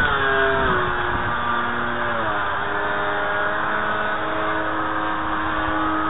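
Electric RC plane's brushless outrunner motor (Turnigy 2632 1500kv) and propeller whining in flight over a steady hiss. The pitch drops just after the start and again a couple of seconds in, then holds steady.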